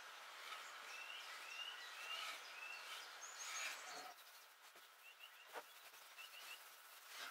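Small birds chirping in the background, short quick chirps repeated over a faint steady hiss, with two faint knocks in the middle.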